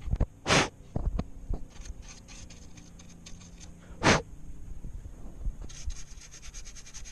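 A toothbrush scrubbing the plastic speaker vent on the underside of an ASUS ROG GL703GS laptop, with rubbing and small clicks as the case is handled. The scrubbing grows into a fast, dense scratching from about two thirds of the way in. Two short, loud puffs of air cut through, about half a second in and about four seconds in.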